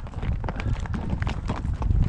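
Horse hooves clip-clopping as a series of quick, irregular knocks over a low rumble.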